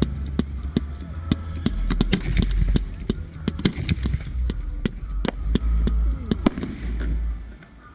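Fireworks going off in a rapid, irregular string of sharp cracks over a low rumble, dying away near the end.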